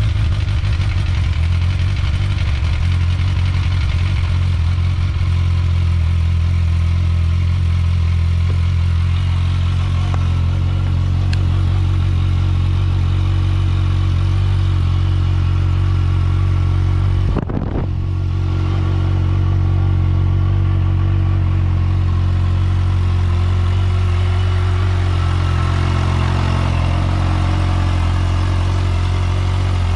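Kawasaki Ninja H2's supercharged inline-four idling steadily, just started after a fresh oil change, with one brief dip in the sound a little over halfway through.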